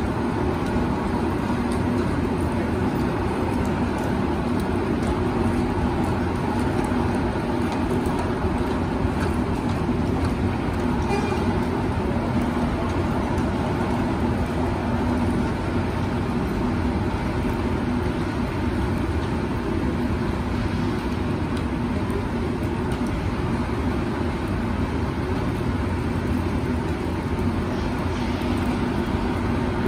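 Steady city street background noise with no distinct events.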